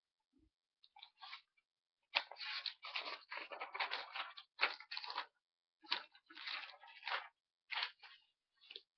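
Close rustling and crunching handling noises in irregular bursts, densest in the middle and cutting in and out sharply.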